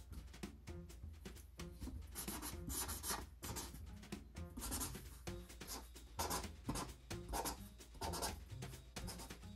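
Felt-tip marker drawing on a cardboard comic box, a dry scratching rub in short, irregular strokes. Faint background music plays underneath.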